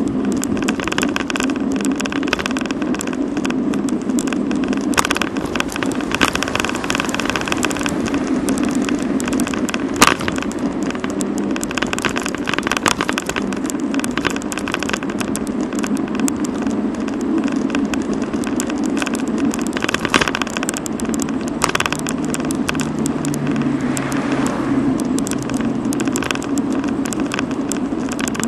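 Road and wind noise picked up by a camera mounted on a moving bicycle: a steady rumble with frequent rattling clicks as the bike rolls over cracked asphalt, and one sharp knock about ten seconds in.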